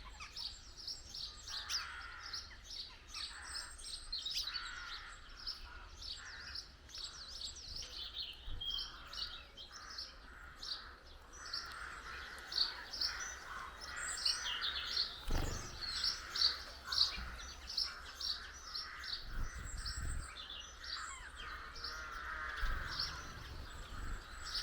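Small garden birds at a feeder chirping and twittering without pause, many quick high chirps overlapping. A single dull knock comes about fifteen seconds in.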